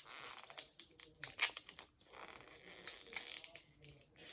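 Toy capsule packaging being torn and crinkled by hand: irregular bursts of ripping and crackling, with a sharp crackle right at the start and a short lull about two seconds in.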